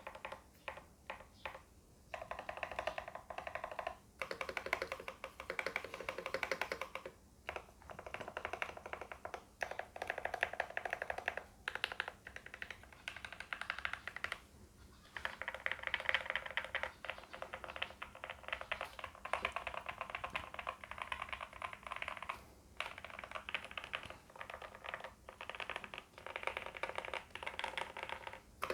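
Fast typing on a Motospeed Darmoshark K5 mechanical keyboard with lubed Gateron Pro Red linear switches and PBT doubleshot keycaps, its case foam- and tape-modded, giving a poppy key sound. The keystrokes come in rapid runs of a few seconds with brief pauses between them.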